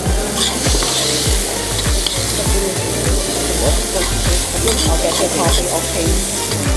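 Rice sizzling as it fries in hot oil in a pan with carrot, ginger and pineapple, stirred and turned to heat the rice through.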